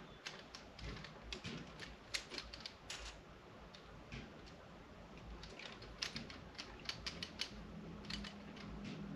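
Irregular light clicks and rattles of a camera tripod's ball head being handled and adjusted by hand, in two loose clusters. A faint low hum comes in near the end.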